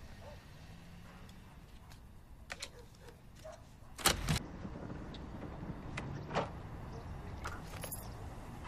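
A pickup truck's driver door shutting with a heavy double thud about four seconds in, followed by a few lighter clicks and rustles as someone settles into the cab.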